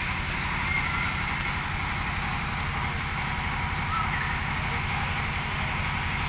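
Diesel generator running steadily, a low even engine rumble with a hiss of ambient noise over it.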